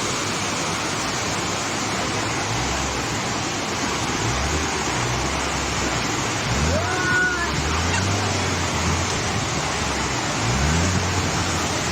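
Steady heavy rain with a constant hiss, with vehicle engines running underneath, revving up about halfway through and again near the end.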